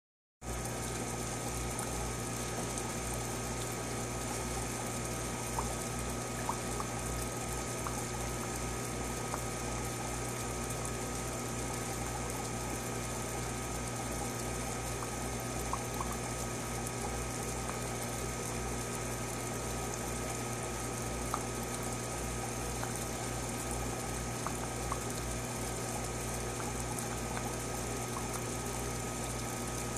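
Aquarium filter or water pump running: a steady trickle of moving water over a constant low electric hum, with a few faint clicks.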